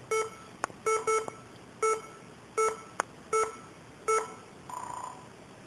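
A laptop's error beep sounding over and over, set off by a cat sitting on its keyboard. It gives about seven short beeps at one pitch, roughly one every three-quarters of a second, with a couple of sharp clicks between them and a brief fainter buzz near the end.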